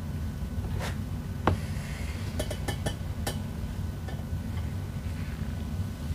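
Hands working at the plastic rear hatch lid of an RC jetboat, making scattered small clicks and taps. The sharpest click comes about a second and a half in, and a quick run of ticks follows a second later. A steady low hum runs underneath.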